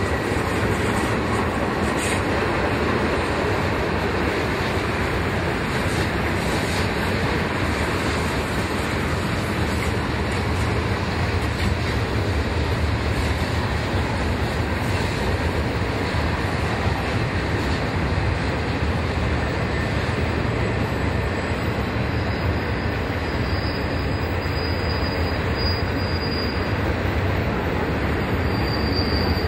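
A train's cars rolling steadily past on the rails, a continuous rumble and rush. A faint, thin, high-pitched wheel squeal comes in during the last several seconds.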